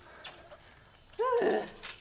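A single short high cry, rising then falling in pitch, a little past a second in.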